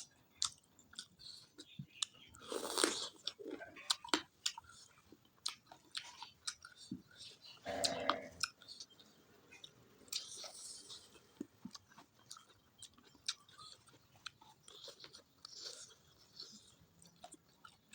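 Close-miked mouth sounds of eating chicken roast: chewing with many short wet clicks and crunches, and a few louder bites, about 3 and 8 seconds in.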